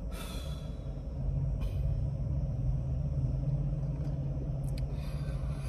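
A low, steady rumble that swells about a second in and eases off near the end, with a short hiss at the very start.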